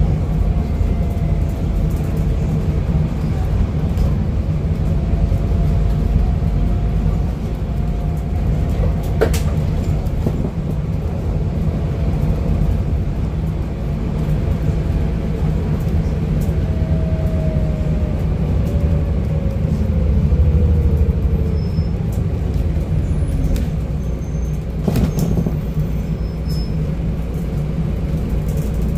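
Scania N250UD double-decker bus driving along, heard from inside the passenger saloon: a steady low rumble from the diesel engine and road, with a faint whine that slides down in pitch about two-thirds of the way through as the bus slows. A sharp click sounds about nine seconds in.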